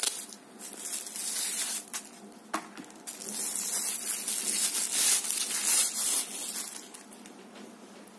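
Thin clear plastic wrapping crinkling and rustling as it is pulled off a telescopic baton by hand. There are a few short clicks and rustles at first, then a thicker, louder crinkling for a few seconds in the middle, which dies down near the end.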